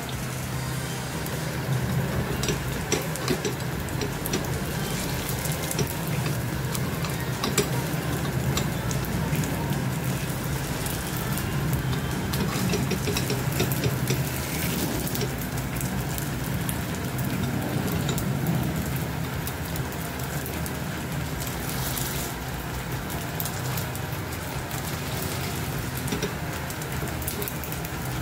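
Rava appe (semolina batter balls) frying in oil and ghee in an appe pan, sizzling steadily over a low hum, with scattered sharp clicks of a spoon against the pan as the appe are turned, mostly in the first half.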